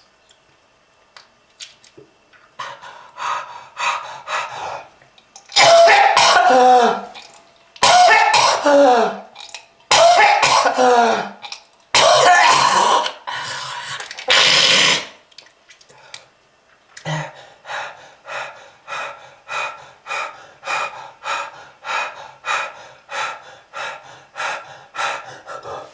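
A smoker's harsh hacking cough. After a quiet start it builds into several long, loud, strained coughing fits with a groaning voice in them, then settles into a steady run of short coughs about two a second.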